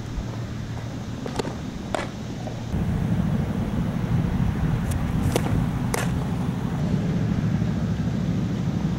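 Two softball pitches, each heard as a pair of sharp pops about half a second apart: one at the pitcher's delivery, then the ball smacking into the catcher's mitt. A steady low rumble lies underneath and grows louder about three seconds in.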